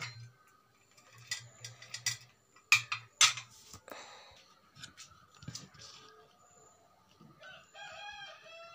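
Steel idli plates clinking and knocking several times as they are handled and oiled. Near the end, a fainter rooster crow, one long arching call.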